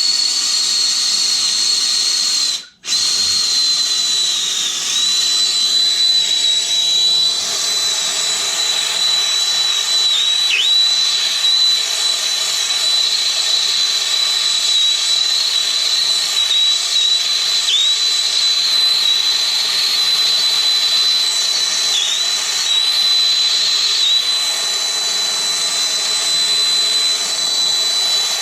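Handheld gas torch flame hissing steadily, with a high thin whistle that dips briefly in pitch now and then, as it heats the tank for soldering. The sound cuts out completely for a moment about three seconds in.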